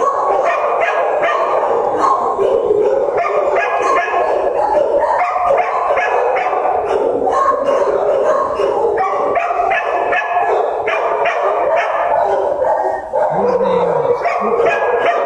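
Many shelter dogs barking at once: a continuous, loud, overlapping din of barks from the kennel runs, with a brief lull about thirteen seconds in.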